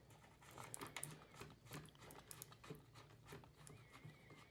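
Near silence with a few faint, scattered clicks and taps of a cable connector and plastic mount being handled.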